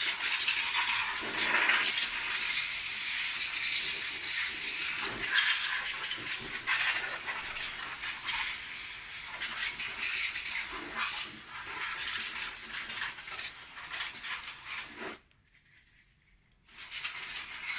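Can of compressed air (air duster) spraying in uneven hissing spurts as it blows dust out of a desktop PC case. The spraying stops for about a second and a half near the end, then starts again.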